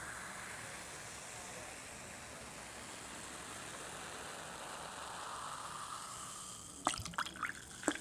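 Close-miked eating sounds of crispy fried chicken and a burger: soft, wet chewing, then a few sharp crunches near the end.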